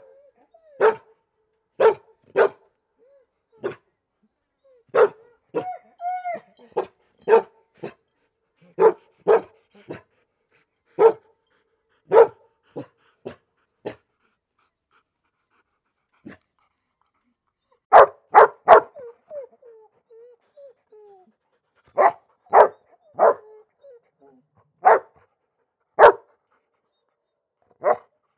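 A dog barking in short single barks, spaced about a second apart, with a brief whine about six seconds in. After a few seconds' pause, a quick run of barks about eighteen seconds in gives way to whimpering, then the single barks resume.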